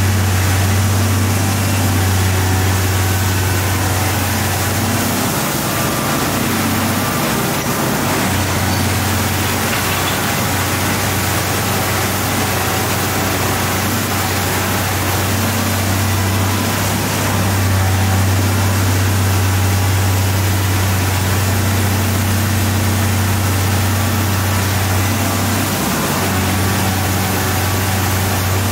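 Komatsu PC1250 demolition excavator's big diesel engine running steadily with a deep hum that dips briefly a few times as the boom and demolition attachment work, over a constant rushing noise.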